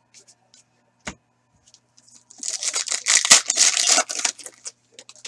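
Foil trading-card pack being torn open and its wrapper crinkled: a dense crackling rustle of about two seconds, with a single knock about a second before it and light card clicks around it.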